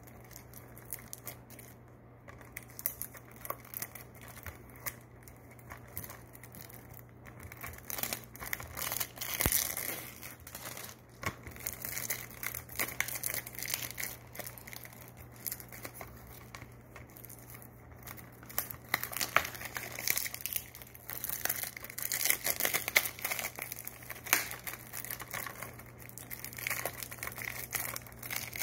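Plastic shrink-wrap on a Blu-ray case crinkling and tearing as it is peeled off by hand. There are irregular crackles throughout, louder in two stretches about a third and three quarters of the way through.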